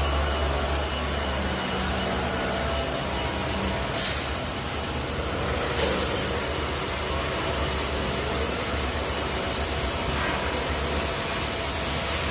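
Vibratory stress relief exciter, an electric motor clamped to a welded steel frame, running steadily at about 4,270 rpm and shaking the frame to relieve its welding stresses: a steady low hum with a broad noise over it. A thin, high, steady whine comes in about four seconds in.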